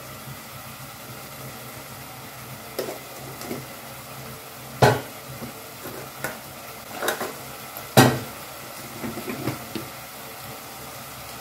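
Onion–tomato masala sizzling in a stainless steel stockpot, with a metal spoon clinking against metal as spice powder is spooned in. Two sharp taps, about five and eight seconds in, are the loudest, with lighter clicks between them.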